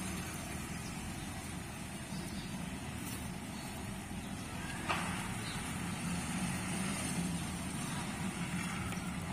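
A steady low background rumble, engine-like, with a single short click about five seconds in.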